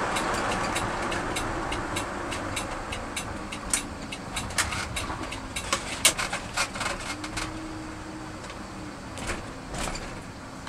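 Driving inside the cab of a 1979 Ford F250 Ranger as it slows and pulls off the road: the road and tyre noise fades steadily, with many sharp clicks and ticks scattered through it.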